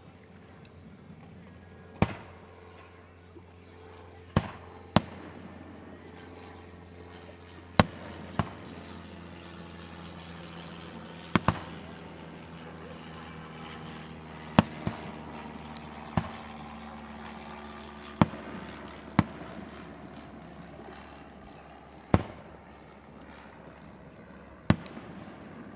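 Aerial fireworks shells bursting, about fourteen sharp booms at irregular intervals, some in quick pairs, each trailing off briefly. A low steady hum sits underneath.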